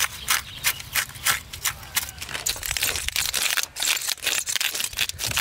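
Metal scrapers raking the scales off a large catla carp: repeated short, rasping strokes, a few a second, growing denser about two seconds in, with the loosened scales clicking off.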